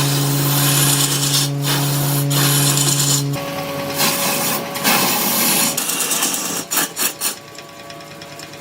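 A tool cutting or scraping wood with a continuous rasping noise, under a low steady hum that stops suddenly about three seconds in. The noise drops away after about seven seconds.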